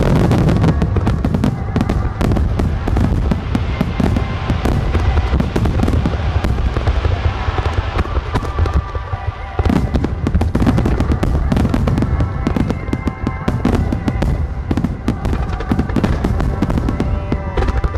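Dense barrage from an Ojiya Enka Kogyo fireworks display: overlapping bangs and crackling over a heavy low rumble, with music playing under it.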